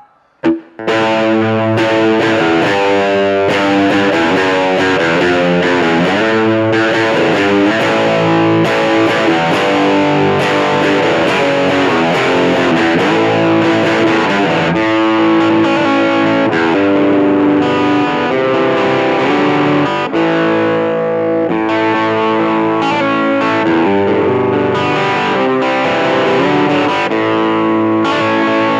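Electric guitar playing chords and riffs with a distorted tone: a Stratocaster loaded with Seymour Duncan P-Rail pickups, played through a NUX Mighty Lite BT amp. The playing starts about a second in and then runs continuously at a steady level.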